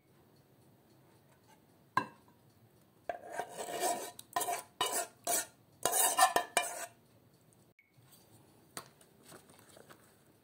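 A spoon scraping thick filling out of a pot into a glass baking dish. There is one sharp knock about two seconds in, then a run of scrapes and clinks that lasts about four seconds and is loudest near its end.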